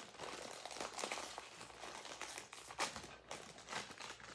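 Crinkly plastic bag of chips rustling and crinkling as it is handled, with many quick sharp crackles.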